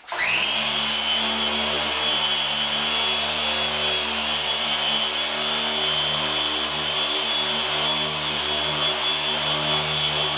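Electric polisher with a buffing pad starting up and running at a steady speed with a high whine over a lower drone, buffing rubbing compound into dull paint on a lawn tractor hood.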